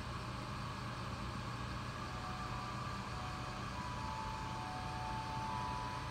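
Steady hum of an air-conditioning unit running. A faint thin high whine comes in about halfway and holds.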